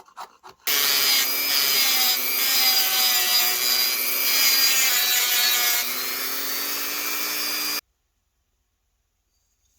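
A tool cutting and abrading a block of hardwood: a loud, continuous grinding, rasping noise with a few wavering tones in it. It starts abruptly under a second in and cuts off abruptly about eight seconds in.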